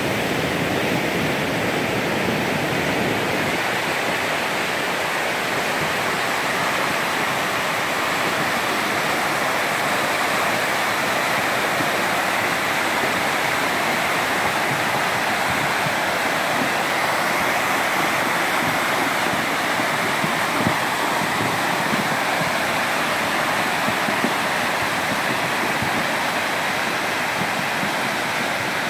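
Steady rush of a muddy stream in spate, swollen by rain, its fast churning water running loud and even.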